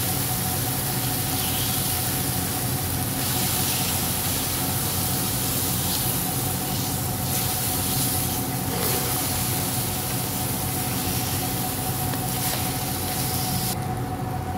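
Chicken breasts sizzling in hot oil in a frying pan, a steady hiss with a constant hum running underneath.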